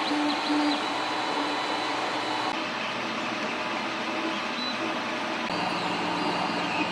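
Creality Ender 3 Pro 3D printer at work: a steady fan hiss with short stepper-motor tones that change pitch as the print head moves. The sound changes abruptly about two and a half and five and a half seconds in.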